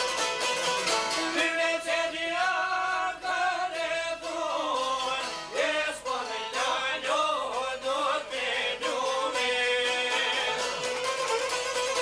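Albanian folk ensemble playing live: plucked long-necked çifteli and lute with a violin, and a man singing in a wavering, ornamented line through the middle of the passage.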